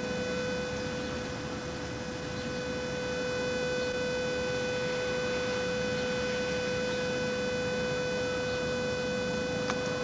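A steady electronic tone begins abruptly and holds unchanged at one mid pitch, over a background hiss.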